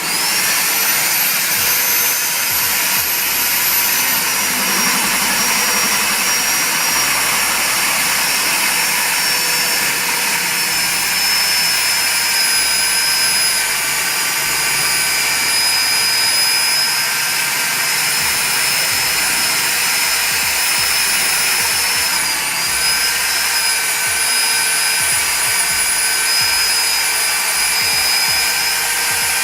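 Nitto AO5575A magnetic drill's electric motor switched on and running steadily at speed: a loud rushing motor noise with a high whine over it. The whine dips briefly about three quarters of the way through.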